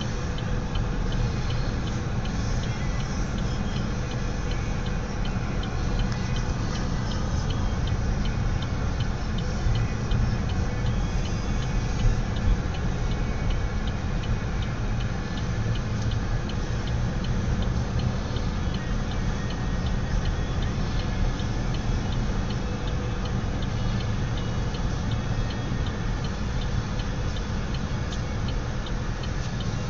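Car running slowly on the road, heard inside the cabin as a steady low rumble of engine and tyres, with a faint regular ticking over it.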